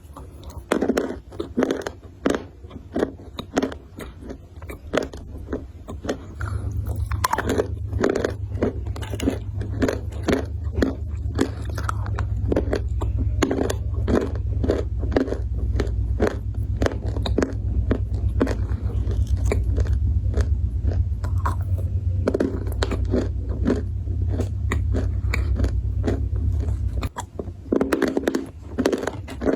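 Close-miked biting and chewing of something crunchy: dense, sharp crunches in quick succession. A steady low hum runs underneath from about six seconds in until shortly before the end.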